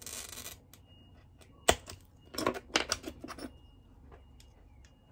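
Glass cutter's wheel finishing a score line across glass with a short scratchy hiss, followed by a sharp click and then a run of clicks and taps as the cutter and the scored glass piece are handled on the bench.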